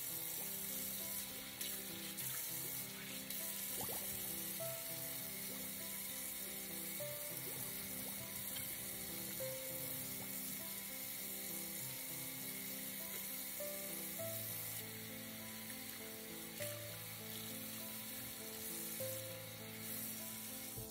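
Kitchen faucet running steadily into a sink while hands are washed under the stream, with background music playing. The running water cuts off right at the end.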